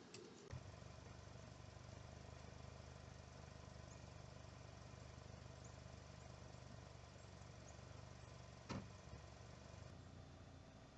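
Faint, steady low hum that starts with a click about half a second in, with a single knock near the end.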